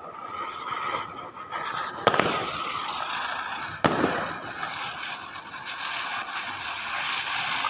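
A ground firework hissing steadily as it sprays sparks, slowly growing louder, with two sharp cracks about two and four seconds in.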